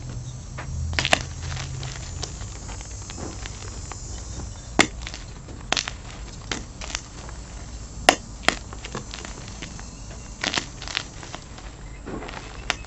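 Blocks of gym chalk crushed and crumbled between the fingers: irregular crisp crunches and snaps over a soft gritty crumbling, with the sharpest snaps about five and eight seconds in.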